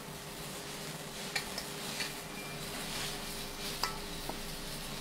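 Plastic-gloved hands kneading and rubbing marinade into a raw whole chicken in a stainless steel bowl: wet squishing and glove rustling, with a few light clicks. A faint steady hum runs underneath.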